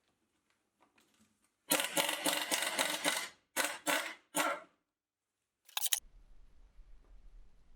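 Mechanical rattling and clicking: one run of about a second and a half, then three short bursts and a last brief one. A faint low hum follows near the end.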